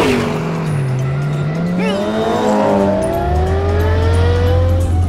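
Cartoon race-car engine sound effects: several engine tones rising together as the cars accelerate. Background music with a steady bass runs underneath.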